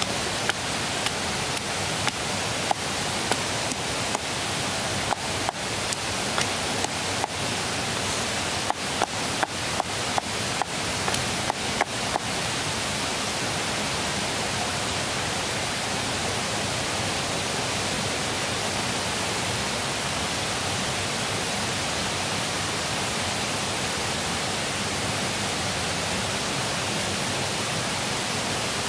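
Wooden pestle pounding in a wooden mortar, a regular run of short knocks at roughly two a second that stops about twelve seconds in, over the steady rush of river water.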